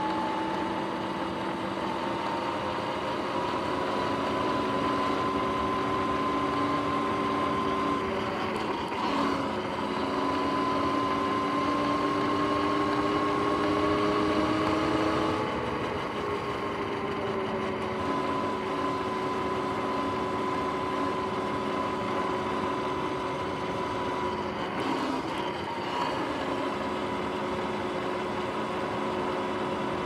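Sur-Ron X electric dirt bike under way: its motor and chain drive give a steady whine of several tones that slowly rise and fall in pitch with road speed, over a rush of noise, with a couple of brief bumps.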